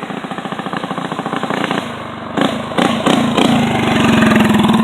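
Small mini bike engine running hard: a pulsing engine note, sharp revving swings about halfway through, then a loud steady high-revving note near the end.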